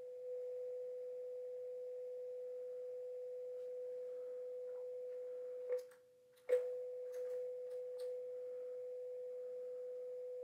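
Steady sine-wave test tone played through the NAD 3020i amplifier into small speakers, carrying a hiss that is more than there should be, a sign of a fault in the amplifier. About six seconds in, the tone cuts out for under a second with a click at each end, and a few more clicks follow as front-panel buttons are pressed.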